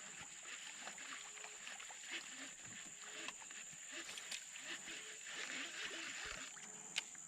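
Outdoor wildlife ambience: a steady high-pitched insect drone over a hiss of insect noise, with short, repeated low animal calls throughout. A single sharp click comes near the end.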